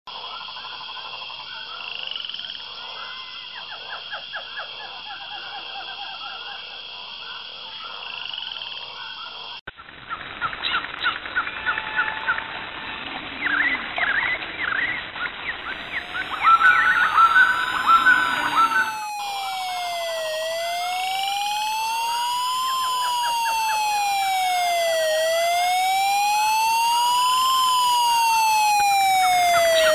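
Wildlife ambience of dense chirping calls over a steady high drone. Just past the middle a wailing siren fades in, rising and falling about every two and a half seconds and growing louder toward the end.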